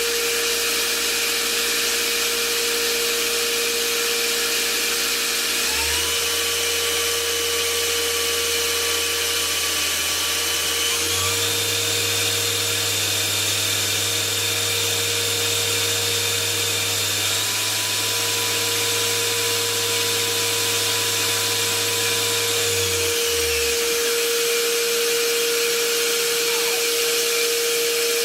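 Spinner PD 32 S CNC lathe running, with a steady hum over machine hiss. The motor tone steps up in pitch about six seconds in and again about eleven seconds in, as the speed is raised. Near the end it glides back down as the machine slows.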